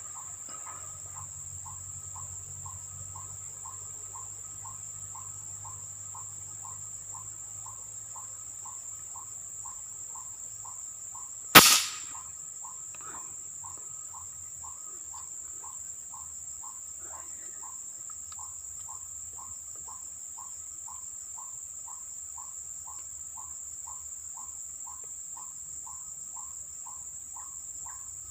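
A single sharp air rifle shot about twelve seconds in, the loudest thing by far, over a steady high insect drone and a regular insect chirp repeating a few times a second.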